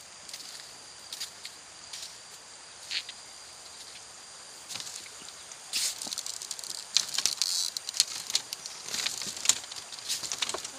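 Footsteps on a bamboo footbridge: dry bamboo slats crackling and clicking underfoot, a few at first and thickening into a steady crackle about halfway in. A faint steady high-pitched hum runs underneath.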